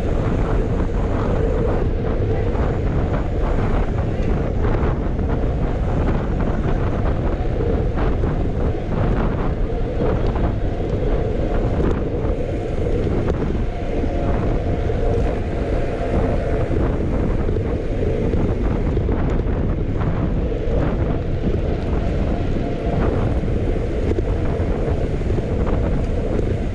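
Steady wind rushing over the microphone of a camera carried on a moving bicycle, with no letup.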